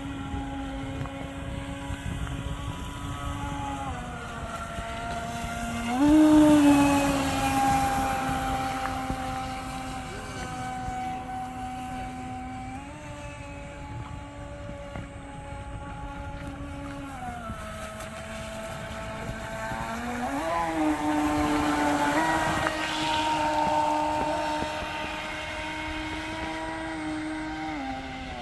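Radio-controlled model speedboat's motor running at speed on the water, one steady buzzing drone that steps up and down in pitch as the throttle changes. It swells loudest twice, about six seconds in and again past twenty seconds, as the boat passes close.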